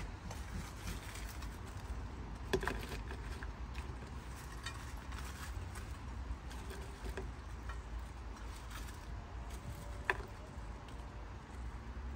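Crispy fried chicken being bitten and chewed: scattered small crunches and crackles, with two sharper cracks, one about two and a half seconds in and one near the end, over a steady low rumble.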